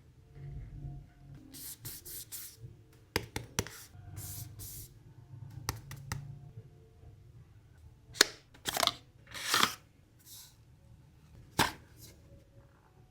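Hands unboxing a product package: a handful of sharp taps and clicks of cardboard and plastic, between several short sliding and rustling swishes of the packaging.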